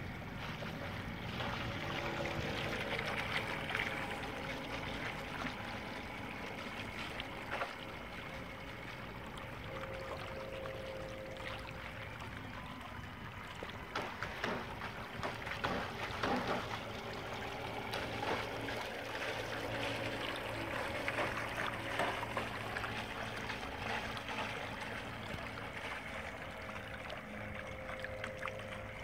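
Water lapping and trickling at a lake's edge, with a faint steady hum from a small radio-controlled bait boat running on the water. There are a few sharp splashes or knocks about halfway through.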